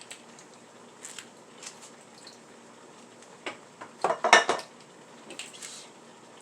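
Kitchen knife cutting plantain pieces and knocking on a cutting board: a few scattered light knocks, with a louder cluster of clattering knocks about four seconds in.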